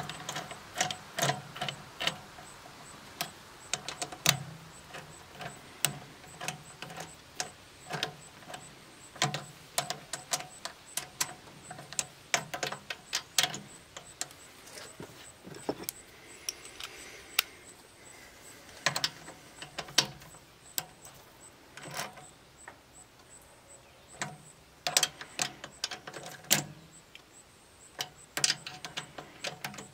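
Irregular small clicks, taps and knocks of hand tools and metal parts being handled while a small portable generator is taken apart, scattered throughout.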